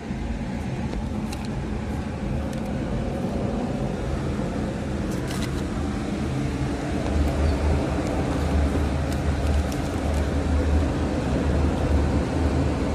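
Car engine running at low speed, heard from inside the cabin: a steady low hum that grows a little louder about seven seconds in.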